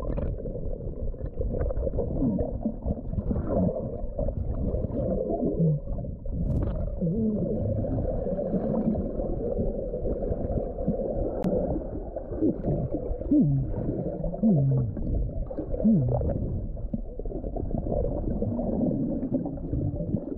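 Underwater sound from a camera submerged in a swimming pool: a dull, muffled rumble of churning water and bubbles as a person moves about, with short warbling tones that rise and fall, likely a man's voice heard through the water.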